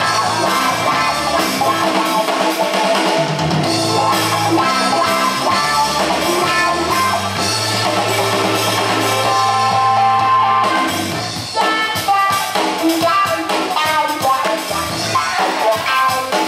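Loud music with drums and sustained bass notes. About two-thirds of the way in, the drums turn into dense, sharp hits.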